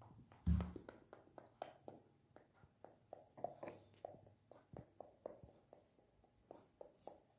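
Light scattered taps and clicks of a pencil on a paper worksheet on a tabletop as a child writes, with one louder low thump about half a second in.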